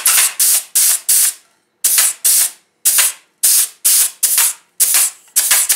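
Grease gun pumped in quick strokes, each stroke a short hissy spurt, about three a second, with a few brief pauses between runs. It is packing fresh grease into a Mercedes W126 front wheel-hub bearing.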